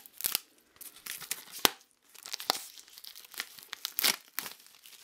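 Plastic shrink-wrap film being torn and crinkled off a CD Digipak, in irregular crackles and sharp snaps.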